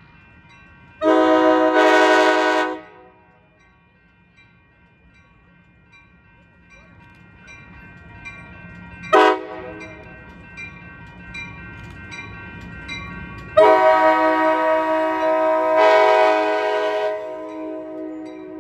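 Locomotive air horn sounding several notes at once: a long blast, a short toot, then another long blast, over the rising rumble of an approaching train.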